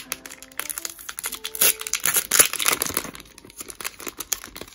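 Packaging being handled and opened by hand, crinkling and tearing, with scattered rustles and clicks and a denser stretch of crinkling around the middle.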